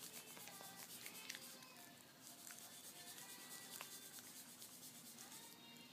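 Faint gnawing of a Maltese puppy's teeth on a dental chew treat: scattered small clicks and scraping sounds.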